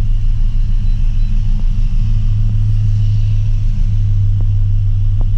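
Volvo car engine idling: a steady low rumble with a slight regular pulse.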